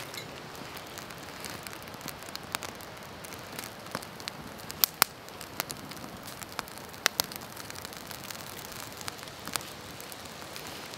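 Small fire of dry twig kindling catching and crackling just after being lit, with irregular sharp pops over a steady soft hiss; the loudest two pops come close together about five seconds in.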